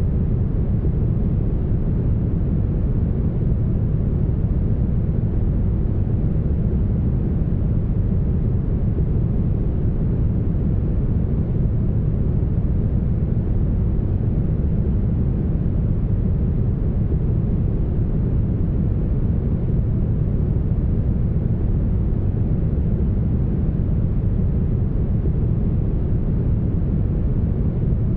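Smoothed brown noise: a steady, deep rumble, strongest in the bass and with almost no hiss in the highs, unchanging throughout.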